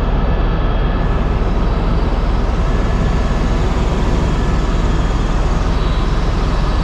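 A vehicle running steadily and loudly, with a deep low rumble and an even rushing noise above it.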